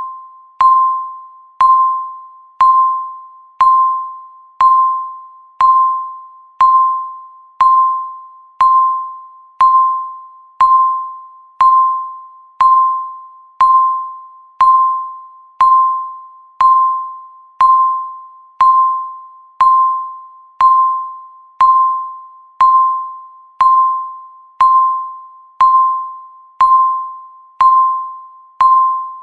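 Countdown timer's sound effect: a single bell-like beep struck once a second, each note starting sharply and fading away before the next.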